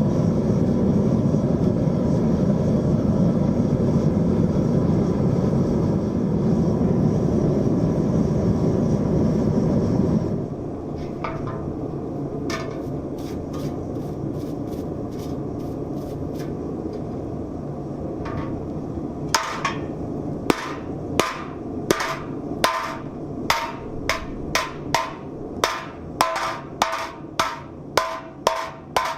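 A steady low rushing noise for about the first ten seconds, then hammer blows on a copper bowl. A few scattered strikes come first, then from about two-thirds of the way in a regular run of about two blows a second, each with a short ringing note.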